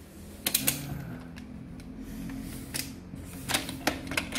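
The telescoping metal trolley handle of a Behringer MPA 40 BT portable speaker being pushed down into its housing: several sharp clicks and rattles spread over a few seconds.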